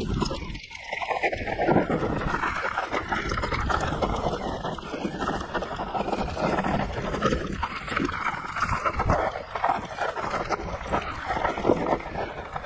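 Voodoo Zobop-e e-bike ridden over rough ground: steady rattling and knocking from the bike, with wind buffeting the microphone.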